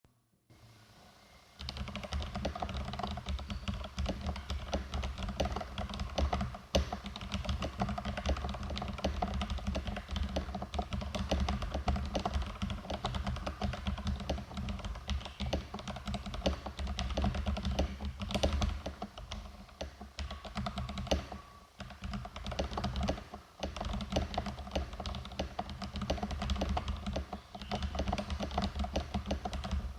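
Fast, continuous typing on an NJ68 mechanical keyboard with a brass plate and Kailh Box Red linear switches lubed with Krytox 205g0 (springs with 105). The keystrokes start about a second and a half in, with a couple of brief pauses past the middle.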